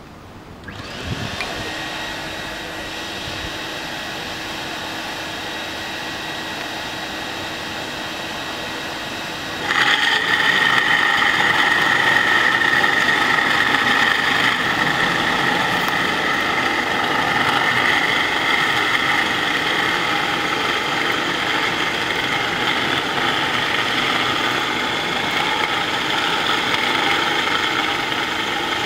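An industrial dust extractor starts and runs steadily. About ten seconds in, the much louder DFG-250E edge floor grinder comes in, a steady high whine with a rough grinding texture as it works along the concrete.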